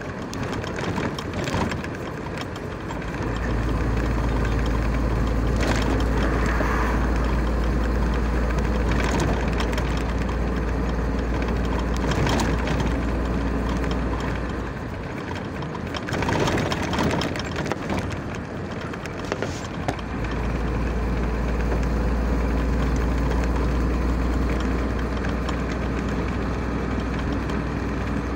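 Car travelling at motorway speed: a steady low rumble of road and engine noise that eases off twice, near the start and about halfway through, with a few brief knocks.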